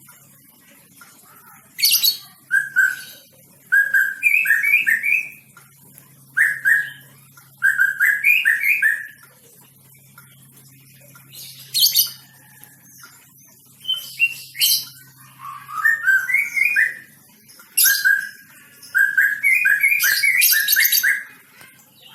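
White-rumped shama singing: phrases of quick whistled notes mixed with sharp, high notes, in repeated bouts with short pauses between them.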